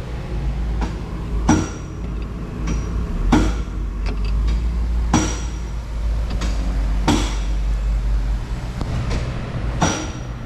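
Hammer blows on metal, about eight sharp strikes at irregular intervals, each with a short metallic ring, over an engine running steadily at a low pitch.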